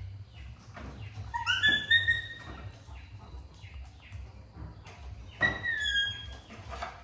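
Baby monkey giving two high-pitched squealing calls: the first rises in pitch about a second and a half in, and the second, about five and a half seconds in, dips slightly.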